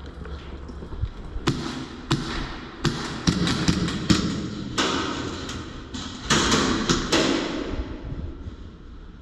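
A rapid, irregular series of sharp knocks and clicks, bunched most closely a little past the middle, with stretches of rustling noise in between.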